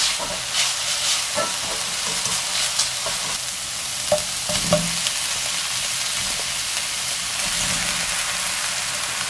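Thin-sliced beef sizzling steadily as it is stir-fried in a hot stainless steel frying pan, with light clicks of wooden chopsticks against the pan. A couple of sharper knocks about halfway through as onion and eggplant pieces are tipped in from a plastic cutting board.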